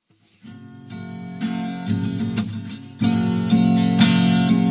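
Acoustic guitar strumming chords, the instrumental introduction to a song. It comes in about half a second in and gets louder about three seconds in.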